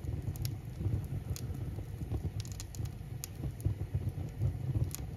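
Wood fire burning in a masonry baking oven: irregular sharp crackles and pops from the split logs and an oil-soaked egg-carton fire starter, over a steady low rumble of flame.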